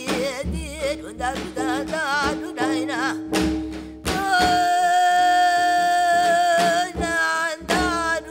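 Korean folk-style singing with heavy vibrato over instrumental accompaniment. About four seconds in, the voice holds one long high note for nearly three seconds before moving on.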